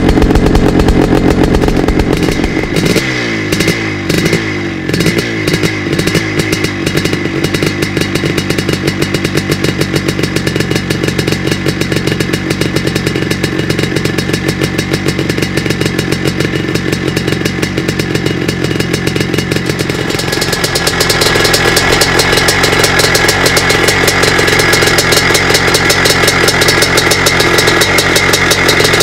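1982 Husqvarna CR 430 two-stroke single-cylinder motocross engine running. A few seconds in it sinks to a slow, uneven beat with wavering pitch, then runs steadily, and from about 21 seconds in it is held at higher, louder revs.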